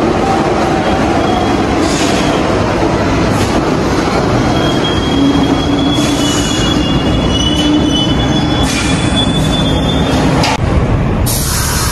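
Subway train running along the track with a steady noise of wheels on rail, and a thin high wheel squeal from about five seconds in until near the end.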